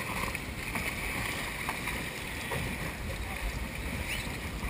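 Steady rumble of a charter boat's engine idling at sea, with a few faint knocks from kayaks being handled on deck.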